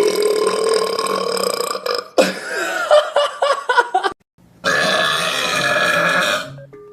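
A man belching loudly: a long drawn-out burp of about two seconds at the start, shorter broken sounds after it, then another long burp of about two seconds in the second half.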